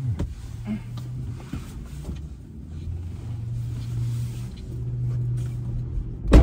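Someone climbing out of a 2021 Volkswagen Atlas's front seat, with rustling and small knocks over a low steady hum. Near the end comes one heavy thud as the door is shut.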